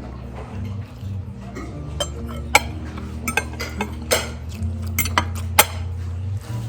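Cutlery clinking against dishes during a meal: a handful of sharp, separate clinks.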